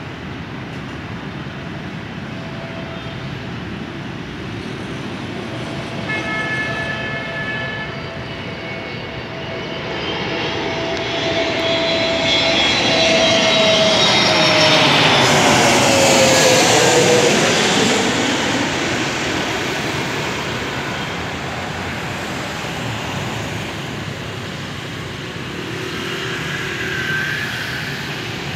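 Airbus A321neo jet airliner with CFM LEAP-1A engines passing low overhead on approach to land. Its engine noise swells from about ten seconds in, is loudest around the middle, then fades, and its engine whine falls in pitch as it goes by.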